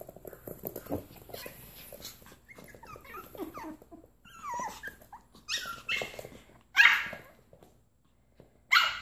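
White Pomeranian puppies whining and yipping in short high glides, then four short yaps in the second half.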